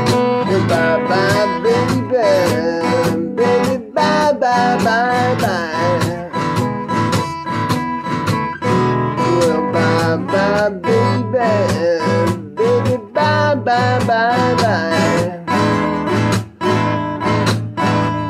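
Acoustic guitar playing an instrumental break in a slow blues: chords strummed steadily, with a melody line bending in pitch above them.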